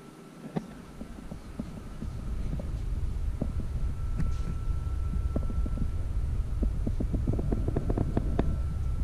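Handling noise on a GoPro action camera's microphone as it is picked up and turned: a low rumble that swells about two seconds in, with many small knocks and clicks that crowd together near the end, over a faint steady high hum.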